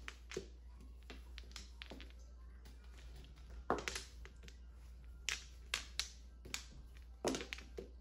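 Mahjong tiles clacking as they are set down and discarded on the table: irregular sharp clicks, the loudest a little before the middle and a run of them in the second half.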